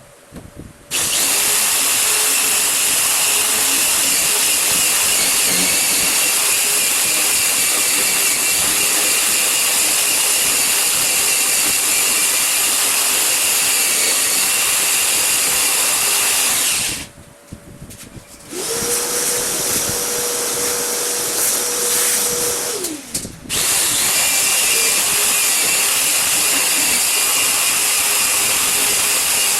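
Electric woodworking power tool running loudly and steadily, starting abruptly about a second in. It breaks off briefly past the middle, a steady motor whine follows for a few seconds, and then the tool runs again.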